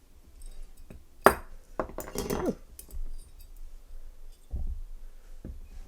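Small metal parts of a Zippo butane lighter insert clicking and clinking as it is taken apart, with a sharp click about a second in and a dull thump near the end.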